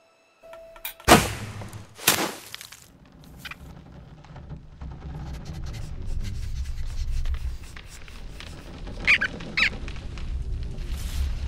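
Cartoon sound effects: after a brief silence, two sharp cracks about a second apart. Then a low rumble slowly grows louder, with two short squeaks near the end.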